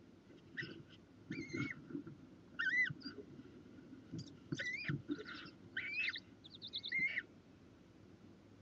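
Barn owls in a nest box giving a run of about eight short squeaky chirps, each rising then falling in pitch, with soft knocks and scuffling as the birds shift in the nest litter.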